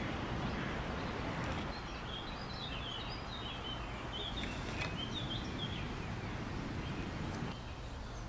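Small birds chirping, a run of short quick chirps from about two to five seconds in, over a steady low background rumble of outdoor air.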